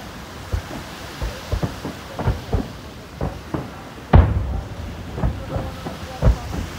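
Japanese aerial firework shells bursting in quick, irregular succession: about a dozen booms, the loudest about four seconds in.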